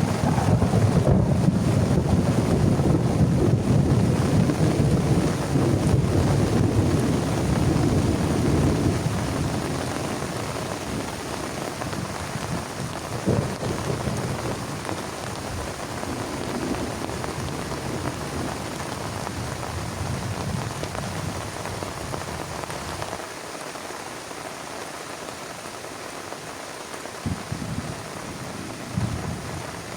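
Heavy rain falling steadily, with a long rolling rumble of thunder that is loudest in the first several seconds and dies away by about ten seconds in.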